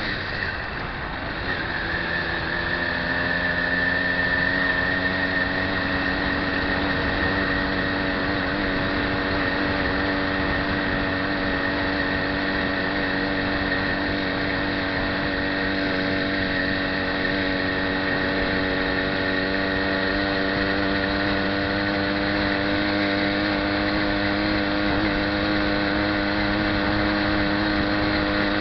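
The motor of the bike carrying the camera, running steadily while riding along, with road noise. It gives a continuous hum whose pitch lines stay nearly level, after the pitch settles in the first couple of seconds.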